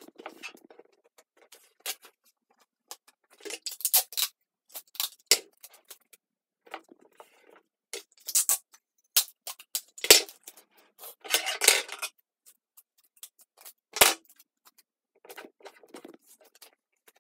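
Paper and sticky tape being handled: clear tape pulled and torn and paper pressed and shuffled, heard as short, separate crinkly scrapes with a couple of sharp taps, one about fourteen seconds in.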